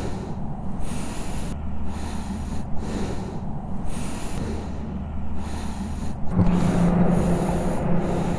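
TVS Apache RR 310's single-cylinder engine running under way, with wind noise; about six seconds in the engine note rises and gets louder as the revs go up.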